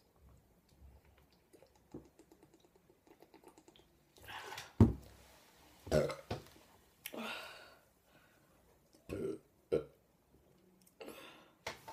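A woman belching loudly several times in a row, gas brought up by gulping carbonated cola. The belches start about four seconds in, and the loudest comes about a second later.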